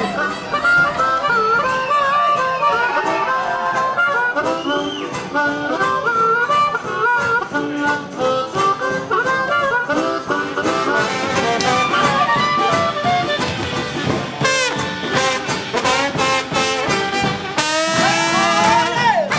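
Live jazz band music with a reedy wind instrument playing the lead melody in held and bending notes over a steady low drone. The texture turns denser and warbling near the end.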